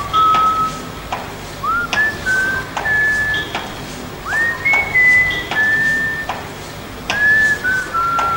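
Background music: a whistled melody of held notes, each sliding up into its pitch, over a light steady beat.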